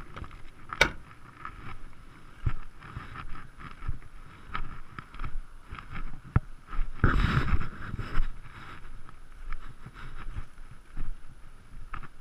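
Handling and walking noise: a sharp metallic click from the lorry's side-skirt locker panel about a second in, then irregular footsteps on gravel with wind on the microphone, and a louder rustle around seven seconds in.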